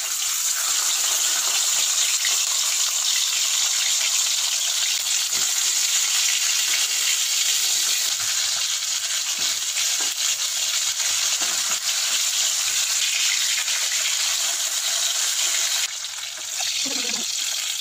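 Whole tilapia frying in hot mustard oil in a wok, a loud steady sizzle that drops a little about sixteen seconds in.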